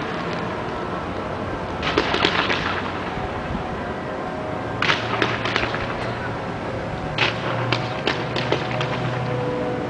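Fireworks display: clusters of sharp bangs and crackling about two seconds in, around five seconds, and again from about seven seconds on, over a steady background hiss.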